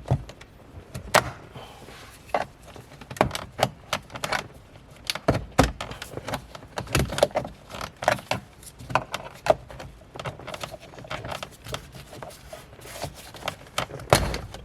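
Plastic console trim being unclipped and handled: a string of irregular clicks, snaps and knocks.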